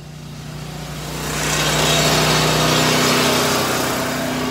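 Industrial insulation-removal vacuum running, sucking fiberglass through its large hose: a loud rushing of air over a steady low hum, swelling over the first couple of seconds and then holding.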